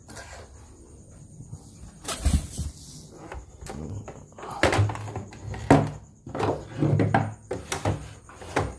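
A series of irregular knocks and thuds as the plastic parts of a portable embroidery machine are handled and set down on a wooden workbench.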